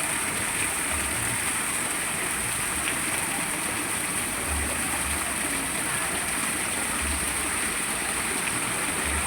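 Water pouring steadily from a spring-fed spout (pancuran) and splashing below, a constant even rush.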